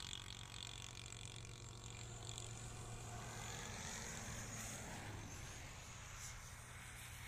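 Distant road traffic: a steady low hum of passing vehicles.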